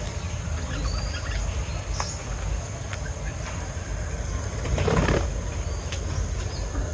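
Small pet birds chirping faintly in short scattered calls over a steady low hum, with a brief rustle about five seconds in.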